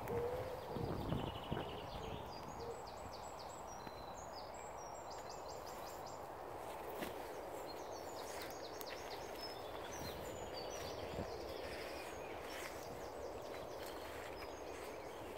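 Small songbirds singing in woodland, several high trills and chirps repeated at intervals, over a steady rustle of footsteps brushing through long grass. A pigeon's low coo trails off in the first second.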